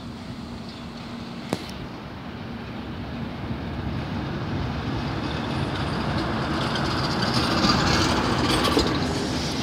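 Street traffic noise building steadily louder as a ZiU-683 articulated trolleybus approaches and a minibus drives past close by. There is a single sharp click about a second and a half in.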